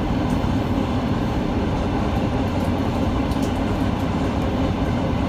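ET2 electric multiple unit running at speed, heard from inside the passenger car: a steady rumble of the wheels and running gear on the rails, with a few faint clicks.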